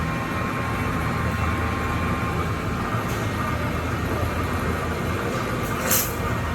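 Steady machinery hum with a low drone, typical of machine-shop equipment running. A short hiss cuts in about six seconds in.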